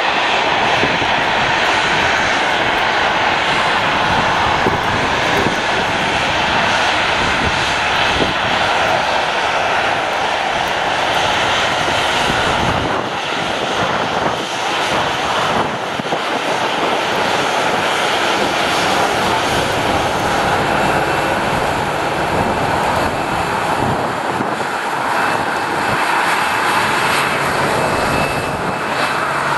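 Boeing 737-800's CFM56-7B jet engines running at taxi power as the airliner taxis past: a steady loud whine and rush. A thin higher whistle joins about two-thirds of the way through.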